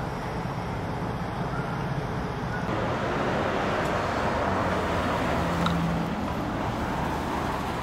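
Steady traffic noise with a low engine hum, a little louder from about three seconds in.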